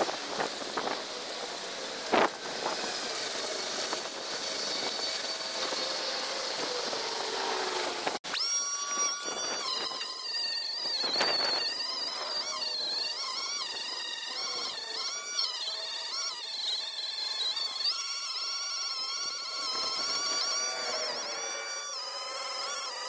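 Power grinder working paint off a metal boat gas tank. First there is an abrasive, hissing scrub. After a short break, a high whine rises and falls as the load on the tool changes.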